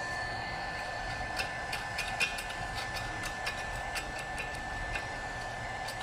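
Portable welding machine running with a steady whine, with irregular sharp ticks and crackles starting about a second and a half in.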